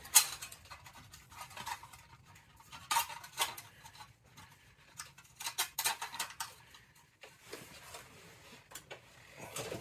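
Scattered light metallic clicks and clinks, the sharpest right at the start, as an aquastat's circuit board is fitted back into its sheet-metal housing.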